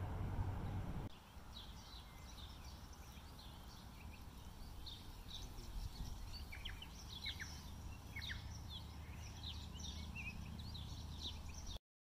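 Small birds chirping in many short, scattered calls over a steady low rumble of wind. The first second holds only a louder rumble, and all sound cuts off suddenly near the end.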